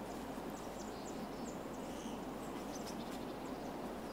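Quiet outdoor ambience: a steady low hiss with faint, scattered high chirps of small birds in the distance.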